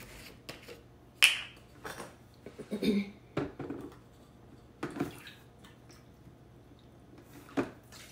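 Handling of a gallon plastic jug of white vinegar: scattered clicks and knocks as the cap comes off and the jug is lifted, and vinegar poured from the jug into a plastic measuring cup and then into a stainless steel saucepan.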